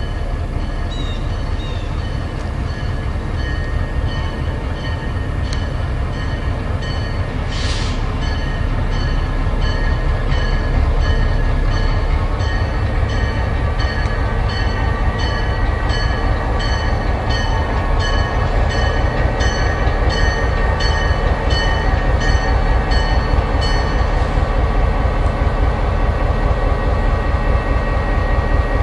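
Diesel locomotive's engine running with a low rumble that grows louder as it moves slowly closer, while its bell rings steadily about one and a half strikes a second, stopping a few seconds before the end. A short burst of hiss comes about eight seconds in.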